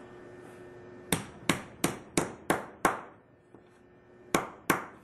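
Hammer blows flattening the end of a copper pipe into a wedge. Six quick metallic strikes, about three a second, then a pause of over a second and three more near the end.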